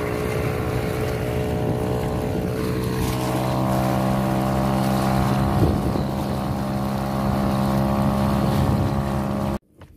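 Small outboard motor running steadily at speed, with water rushing along a kayak hull and wind on the microphone.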